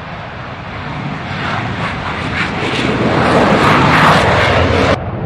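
F-16 fighter jet taking off, its engine noise building as it speeds past and loudest from about three seconds in, then cutting off suddenly near the end.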